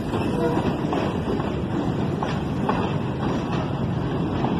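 Freight train's boxcars and container flatcars rolling past close by: a steady rumble of steel wheels on rail with a few faint clacks.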